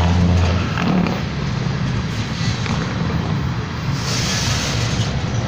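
Freight train of gasoline tank cars rolling past at speed: a steady rumble and rush of steel wheels on rail, with a few sharp clicks.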